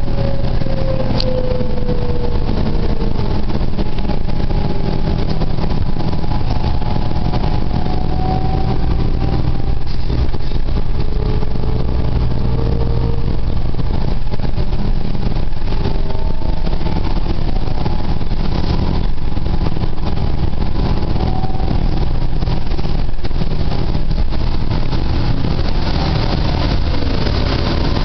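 Cabin sound of a New Flyer DE60LFR hybrid articulated bus under way, its Cummins ISL diesel and Allison EP50 hybrid drive running steadily under a low hum and road noise. Faint whining tones from the drivetrain glide up and down in pitch as the bus changes speed.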